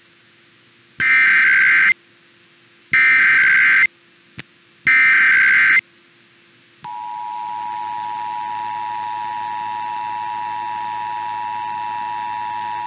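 Emergency Alert System test signal from a broadcast station. It starts with three one-second bursts of SAME header data, about a second apart, with a brief click between the second and third. About seven seconds in, the steady two-tone EAS attention signal (853 and 960 Hz) begins and holds.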